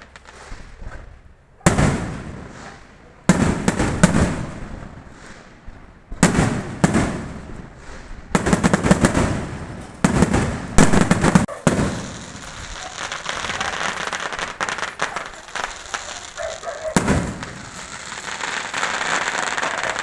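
Fireworks going off: a run of sharp, loud bangs, each trailing off, several in quick succession, then a steady stream of crackling from about halfway through with one more bang near the end.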